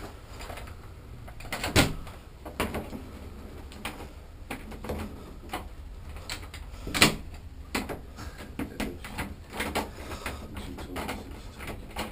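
Keys clicking and jingling in a door lock while the doorknob rattles: a run of small irregular clicks with a couple of sharper knocks, about two seconds and seven seconds in, as the door is unlocked by hand.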